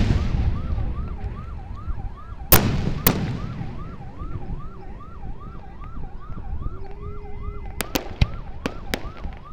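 Aerial firework shells bursting with loud booms: one right at the start and two about two and a half and three seconds in. Near the end comes a quick run of sharp crackling reports. Throughout, a siren yelps, rising and falling about three times a second.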